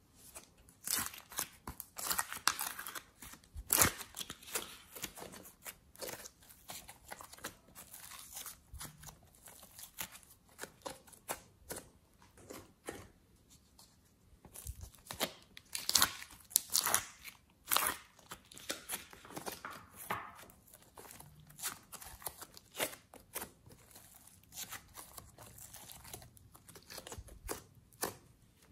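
Hands squeezing and pulling soft clay and slime, making irregular sticky crackles, pops and tearing sounds, with louder clusters near the start and again about halfway through.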